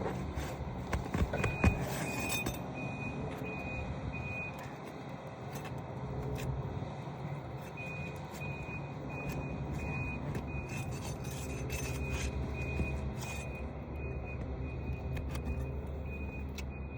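A vehicle's reversing alarm beeping about twice a second, pausing for a few seconds in the middle, over a steady low rumble. A few sharp knocks come about a second and a half in.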